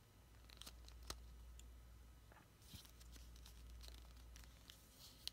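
Near silence with a few faint clicks and soft rustling of packaging being handled.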